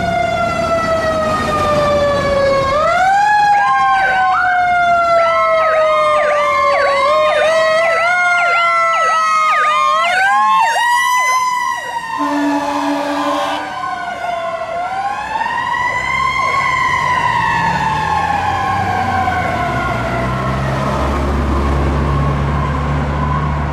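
Fire truck siren sounding as the apparatus responds: long wails that sweep down and rise again, switching for a few seconds to a fast yelp. A short steady horn blast comes about halfway through, and the siren then winds up once more and slowly falls away over the engine's rumble.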